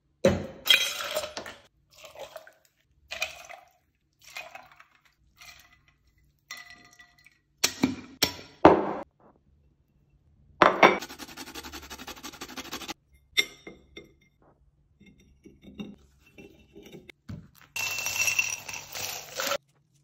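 Cocktail being mixed by hand: glassware and ice clinking and knocking in a string of separate strikes, a steady rattle for about two seconds around halfway, and near the end the drink poured through a fine strainer onto crushed ice in a glass tumbler.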